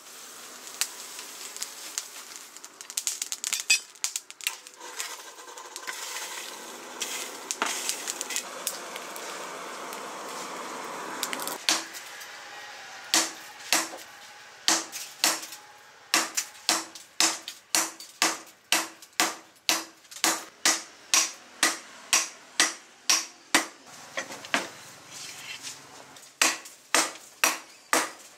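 Coals crackling and clinking in a forge fire over a steady rush. From about halfway through, a hand hammer strikes red-hot leaf-spring steel on an anvil at about two blows a second, each blow ringing briefly. The blows pause for a couple of seconds near the end, then resume.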